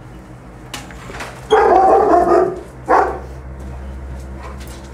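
A dog barking: a long, loud bark or quick run of barks about a second and a half in, then one short sharp bark about a second later.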